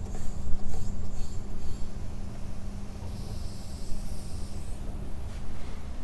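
Air compressor motor running steadily with a low hum, switched on to supply the pneumatic brad nailer. A higher hiss joins about halfway in and stops near the end.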